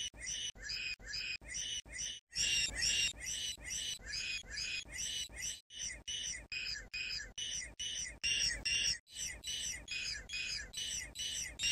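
A short high-pitched squawk repeated about three times a second in an even, machine-like loop, with a few brief breaks.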